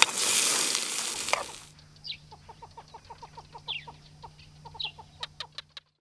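Sausages sizzling in a frying pan on a gas camp stove, cut off abruptly after about a second and a half. Then a quieter string of short, rapid bird-like calls with a few falling whistles over a low steady hum, which stops suddenly near the end.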